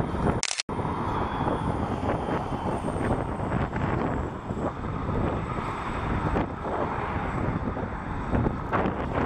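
Diesel freight locomotives passing slowly, their engines running steadily. About half a second in there is a brief sharp click and a momentary dropout.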